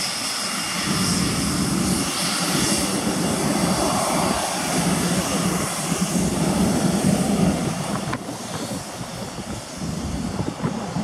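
Twin RB199 turbofan engines of a Panavia Tornado at taxi power as it rolls past: a steady jet rumble with a faint high whine, loudest about seven seconds in and easing a little as the jet moves away.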